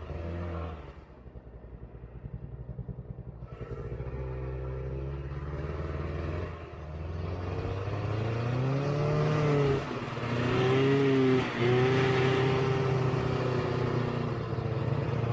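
Vintage Ski-Doo snowmobile's two-stroke engine dropping to a low, chugging idle about a second in, then picking up again and rising in pitch as the throttle opens, running steadily under throttle for the last few seconds with two brief dips.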